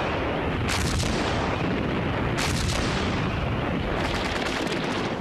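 Battle sounds of gunfire and shellfire over a continuous heavy rumble. Two sharp blasts ring out about a second and about two and a half seconds in, then a rapid rattle of shots begins near the end.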